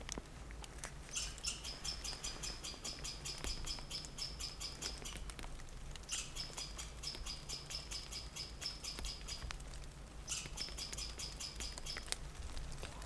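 A small forest animal's rapid, high, ticking trill, given in three long bursts of three to four seconds each, over a steady low rumble.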